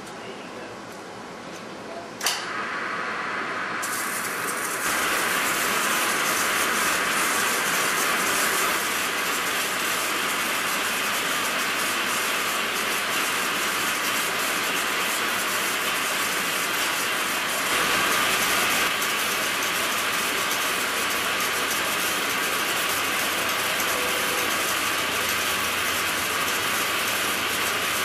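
Metal engine lathe started with a sharp clunk about two seconds in, then running steadily while a carbide tool rough-turns an eccentric (offset) diameter on a welded metal shaft, with the hiss and rattle of the cut throughout.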